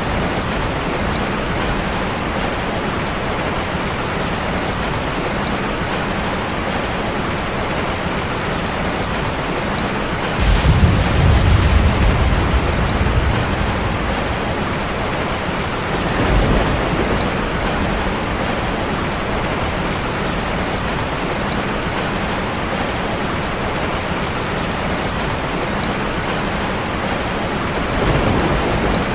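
Steady rain with thunder: a loud low rumble of thunder rolls in about ten seconds in and lasts about three seconds, with weaker rumbles around sixteen seconds and near the end.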